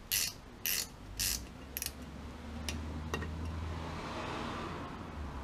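Ratchet wrench working the bolts that hold a rear drum-brake wheel cylinder: four short ratcheting strokes about two a second, then a couple of light clicks. A low steady hum builds over the second half.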